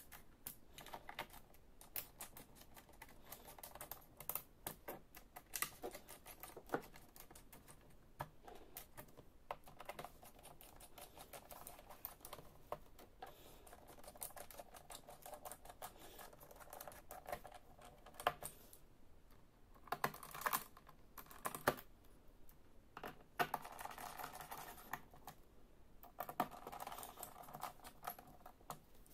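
Faint, irregular clicks and taps of fingers pressing on an Acer Extensa EX2519 laptop's plastic bottom case. Toward the end there are stretches of soft rubbing as a cloth wipes the case.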